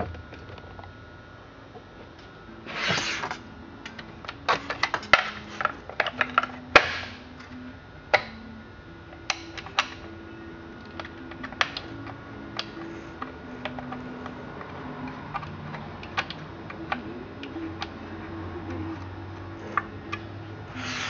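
Clicks, taps and two short scrapes of a screwdriver and metal cover parts being handled on a McCulloch 172 chainsaw, over faint background music.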